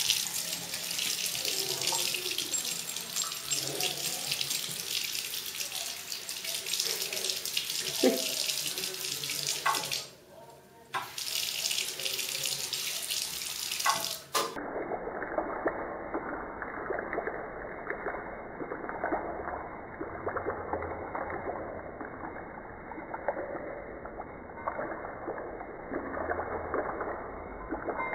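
Water from an automatic infrared tap running steadily into a ceramic washbasin. The stream shuts off for about a second and comes back on. For the second half it sounds duller and muffled.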